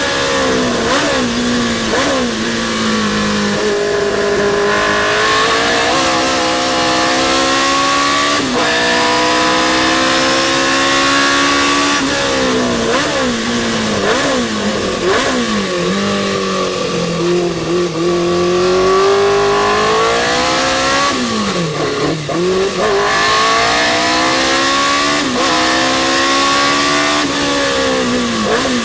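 Race car engine at racing speed, its pitch climbing steadily through each gear and dropping sharply at every upshift. Clusters of quick downshifts come around the middle and again near the end.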